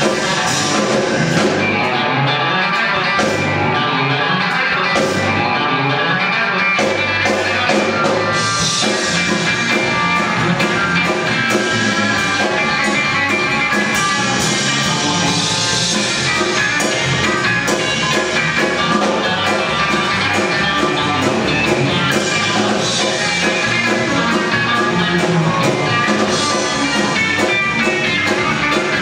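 Live rock band playing: electric guitar, electric bass and drum kit together in a steady groove. The sound grows fuller in the highs about eight seconds in.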